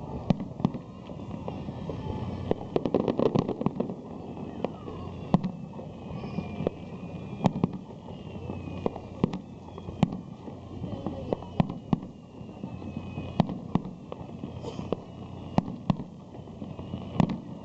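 Aerial fireworks shells bursting in an irregular series of sharp bangs, with a rapid cluster of bursts about three seconds in. Thin falling whistles sound between the bangs.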